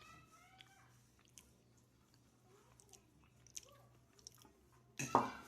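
Faint clicks and soft wet rubbing as oil is spread around a cake mould to grease it, with a voice starting just before the end.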